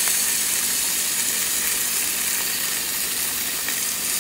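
Salmon sizzling on the hot plates of a small electric countertop grill with its lid shut: a steady high hiss that eases slightly over the seconds.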